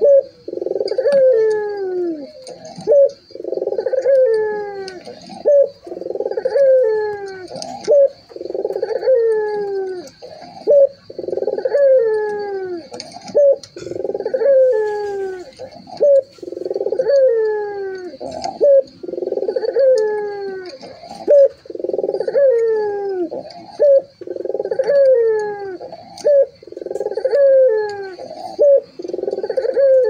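Puter (ringneck dove) cooing: a coo phrase that falls in pitch, repeated steadily about every two seconds, some fifteen times over.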